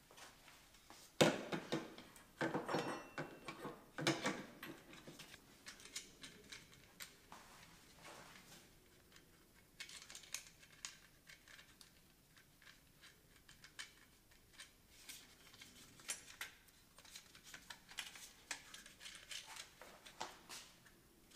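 Clicks, light knocks and rattles of a molded plastic oil catch can and its metal mounting bracket and bolts being handled and fitted together by hand. The louder knocks come in the first few seconds, followed by lighter scattered clicks.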